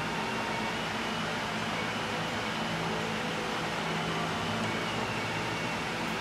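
Steady mechanical hum and airy hiss with a constant low drone, unchanging throughout, with no distinct clicks or knocks.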